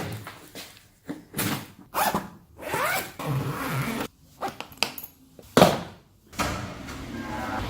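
A zipper pulled in several quick strokes, followed by a sharp knock about five and a half seconds in. A steady low rumble starts near the end.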